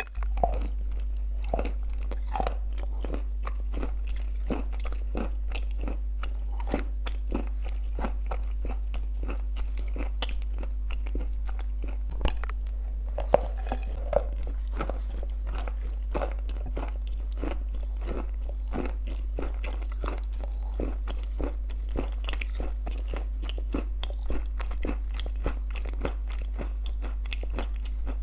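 Crunchy baked clay shaped as shortbread cookies being bitten and chewed with clay paste: a dense, irregular run of crisp crunches.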